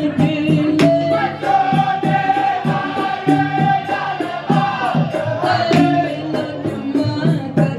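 Dikir barat performance: voices singing a drawn-out, wavering melody over a steady beat of percussion strikes.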